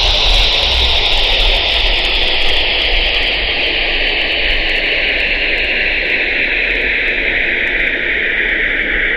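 Electronic noise drone: a steady, static-like hiss whose bright band slowly sinks in pitch throughout, like a filter being swept down.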